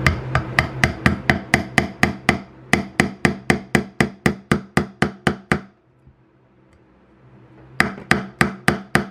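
Brass rod tapped into a drilled hole in a wooden base, using pliers as a hammer: a run of sharp metal taps about four a second for some five seconds, a pause, then another quick run of taps near the end. The rod is a snug fit in the hole.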